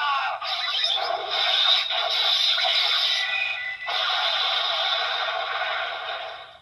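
Kamen Rider Saber DX Kaenken Rekka toy sword playing a finisher sound effect through its small built-in speaker: electronic effects and music, thin with no bass. It stops abruptly near the end.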